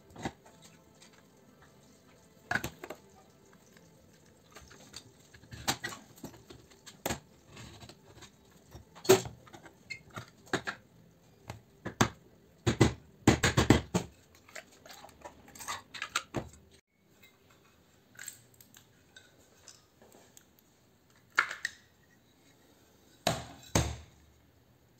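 Irregular metallic clanks, knocks and clinks of hand tools and the metal parts of a clothes iron being worked at a bench vise and set down during dismantling. There are a dozen or so sharp hits, a few ringing briefly, with a cluster of quick ones about halfway through.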